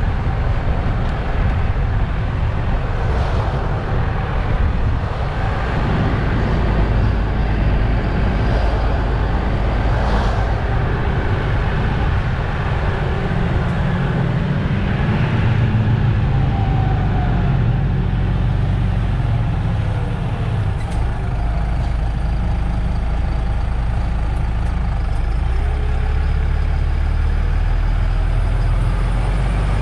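Diesel engine of a MAN Lion's City GL articulated city bus running, heard from outside, its low note growing stronger and shifting several times.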